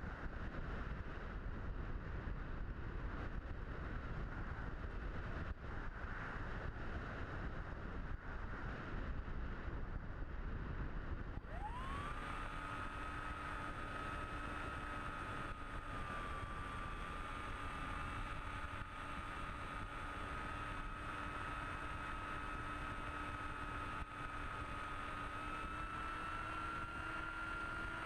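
Airflow rushing past an onboard camera on an electric model motor-glider, with the motor off. About halfway through, the electric motor and propeller spin up with a quick rising whine, then run at a steady high-pitched drone that creeps higher near the end.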